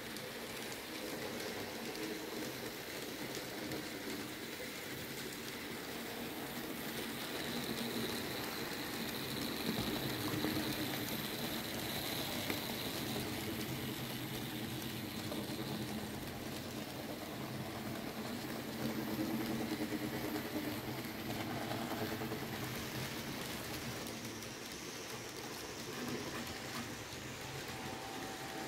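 Several N-scale model trains running at once: small electric locomotive motors whirring and tiny wheels rattling over the track, a steady rushing sound with a thin high whine that comes in for a few seconds in the middle.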